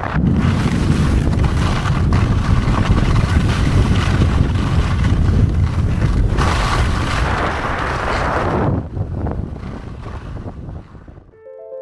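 Loud wind rumble on the microphone of a kite skier's action camera, mixed with the hiss of skis sliding over wind-crusted snow. The noise eases off about nine seconds in, and soft piano music begins at the very end.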